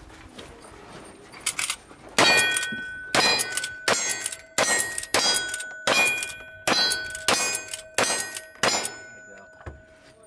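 Lever-action rifle fired about ten times in quick succession, roughly two shots a second, each followed by the ringing clang of a steel target being hit. The string starts about two seconds in and stops near the end.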